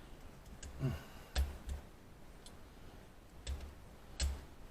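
Scattered sharp clicks and taps of small hand tools on metal, irregular and a second or so apart.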